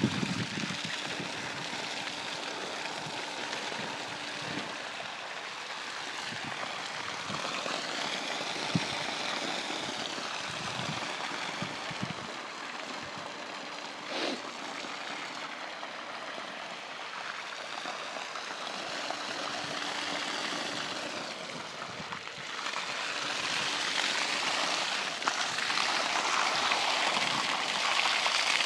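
Water gushing from a hose pipe onto ice and splashing across its surface while an ice rink is flooded; a steady rushing splash that grows louder near the end.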